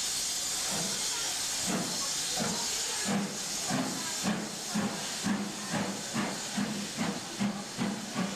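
Steam locomotive moving off: a steady hiss of steam from the open cylinder drain cocks, then exhaust beats begin about two seconds in and quicken to about three a second as it gathers speed.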